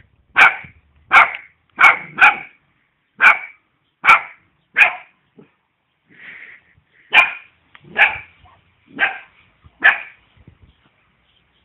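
Eight-week-old Caucasian shepherd puppy barking: short, high-pitched barks about once a second, eleven in all, with a pause of about two seconds midway.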